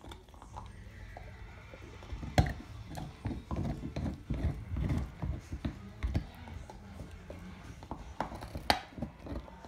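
A pit bull gnawing a deer antler: irregular clicking, scraping and knocking of teeth on the hard antler, busiest in the middle, with two sharp loud clicks, one about two seconds in and one near the end.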